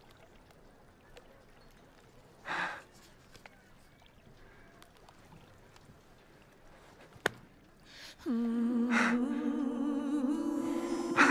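A man's sharp gasp of breath about two and a half seconds in, over quiet room tone, and a single click a few seconds later. About eight seconds in, a held note of background music comes in loud and steps up to a higher held note, with more breaths over it.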